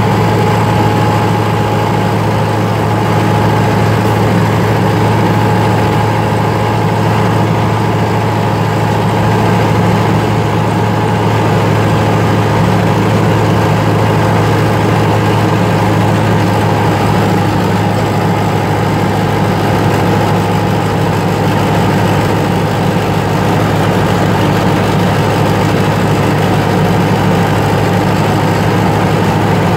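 Fortschritt ZT 303 tractor's four-cylinder diesel engine running steadily as the tractor drives across a field, heard from inside the cab: a low steady drone with a faint steady whine on top.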